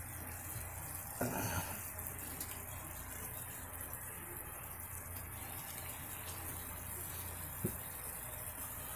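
Balsamic-tomato sauce simmering in a skillet, a steady soft sizzle. It gets briefly louder about a second in, and there is a single light knock near the end.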